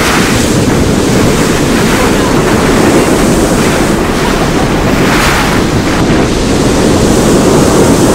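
Sea waves washing onto a pebble beach, with strong wind buffeting the microphone in a steady low rumble. The hiss of breaking surf swells just after the start and again around five seconds in.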